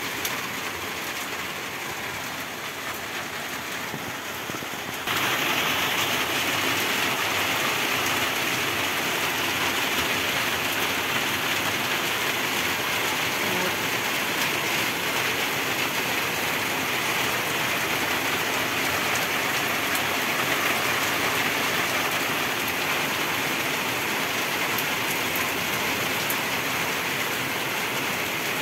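Steady rain pouring down, turning suddenly louder about five seconds in.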